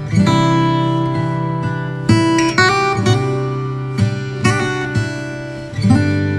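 Background music: acoustic guitar strumming chords that ring on, with a fresh strum every second or two.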